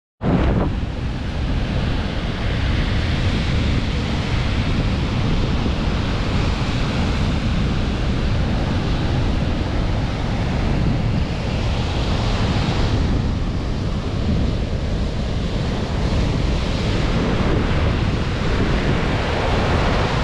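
Strong storm wind buffeting the microphone over the steady rush of Baltic Sea surf breaking on the shore. It cuts in abruptly right at the start.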